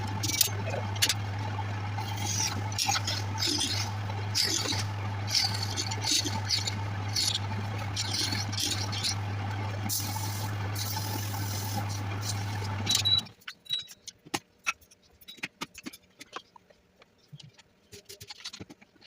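Wood lathe running with a steady hum while a turning tool scrapes and cuts the spinning wood in short strokes. About two-thirds of the way through the lathe stops suddenly, and only scattered light clicks and knocks follow.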